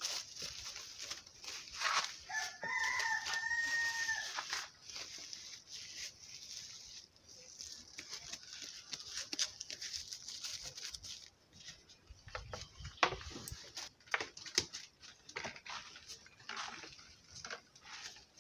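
Thin plastic bag crinkling and rustling as hands wrap a ball of fufu in it. A rooster crows once, a single long call about two seconds in.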